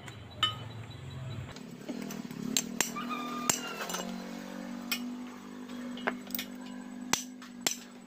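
Sharp metallic clinks and taps, scattered irregularly, as hand tools and small steel parts are handled against a Yamaha Jupiter Z motorcycle cylinder head while its valves are being taken out. A few short metallic rings come a little after the middle.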